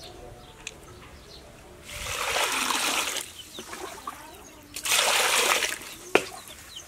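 Water splashing in a plastic basket of small cleaned fish as they are rinsed, in two bursts of about a second each, followed by a single sharp knock near the end.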